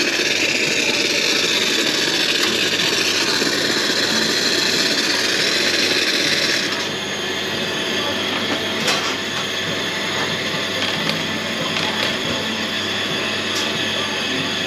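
Commercial espresso machine venting steam with a loud, steady hiss that cuts off about seven seconds in. After that comes a quieter running background with a few light metallic clicks.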